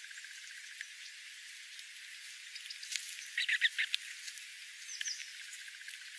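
Sparrows chirping while feeding on the ground: a quick run of short chirps a little past the middle and a few thin, falling high calls near the end, with a few sharp clicks over a steady hiss.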